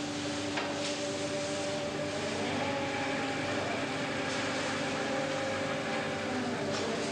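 Fishing boat's engine and deck machinery running, a steady drone with a hum whose tones shift slightly in pitch partway through.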